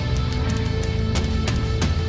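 Heavy metal music: electric guitar with drums, a few sharp drum hits in the second half.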